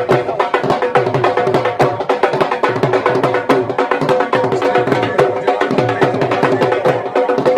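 Music with a steady drum beat under long held melody notes.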